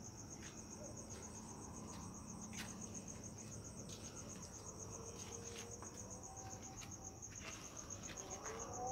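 Crickets trilling in a steady, high, rapidly pulsing trill, with faint scattered clicks and taps.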